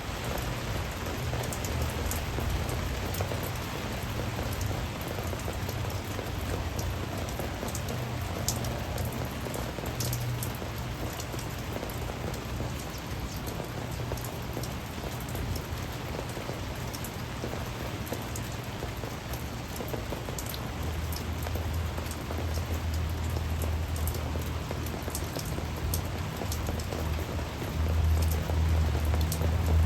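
Steady heavy rain from a storm, with individual drops ticking sharply on nearby surfaces. A low steady hum sits underneath and grows louder near the end.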